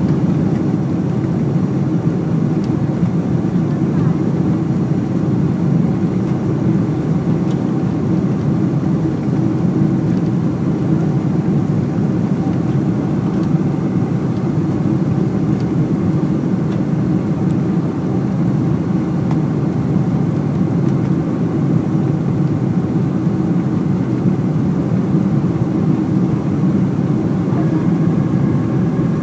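Steady cabin noise of a Boeing 747-400 climbing out after takeoff, heard from a window seat over the wing: the rush of air and the drone of its four Rolls-Royce RB211 engines at climb power.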